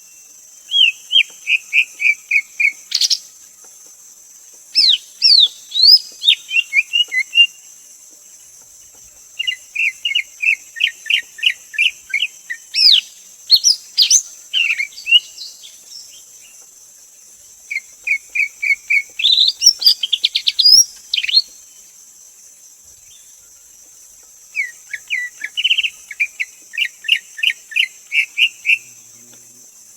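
Greater green leafbird singing: five phrases of quick repeated notes, about four a second, mixed with higher sweeping whistles, each phrase a few seconds long with short pauses between.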